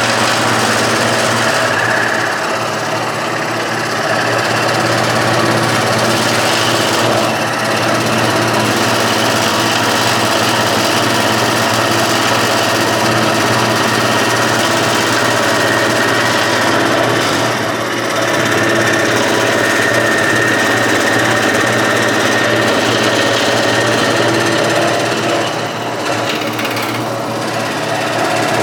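Large scroll saw running, its blade moving rapidly up and down as it cuts a wooden board along a template line. A steady mechanical drone with a few brief dips in level.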